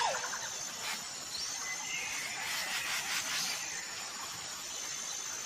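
Small birds chirping: quick short chirps and a few gliding whistles, with a thin steady high-pitched tone running underneath.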